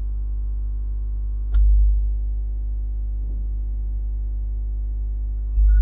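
Steady electrical hum: a strong low drone with a stack of faint steady overtones above it. A sharp click comes about a second and a half in, and the hum swells briefly after it.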